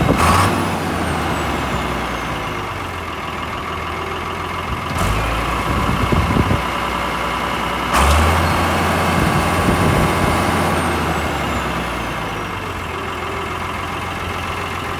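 The six-cylinder turbo diesel of a 1969 International Harvester 1256 tractor running and being revved: sharp surges right at the start, about five seconds in and about eight seconds in, each settling back to a steadier run. A faint high whistle falls away after the surges.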